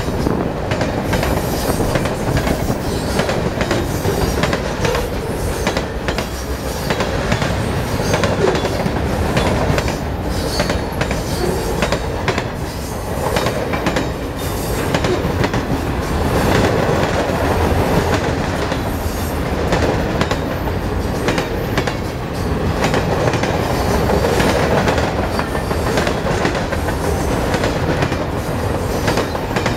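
Freight train of loaded flatcars rolling past at close range: a steady rumble with the repeated clickety-clack of steel wheels over the rail joints.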